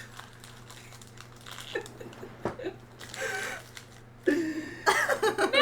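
Snack packaging crinkling and being handled, with small clicks and rustles, and a brief voice or laugh in the second half.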